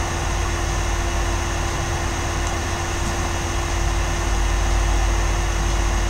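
Steady hum and rushing noise of running rooftop air-conditioning machinery: an even drone with one constant hum tone over a low rumble.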